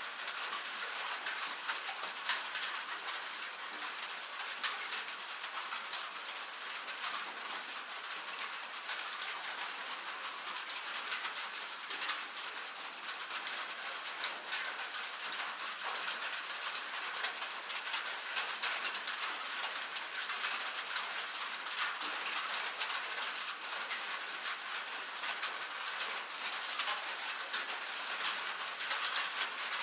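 Steady rain on a metal roof: an even hiss of rainfall dense with small, sharp ticks of drops striking the metal.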